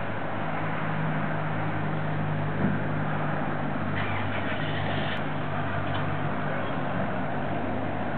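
Steady low motor hum over constant background noise, with a brief faint higher sound about four seconds in.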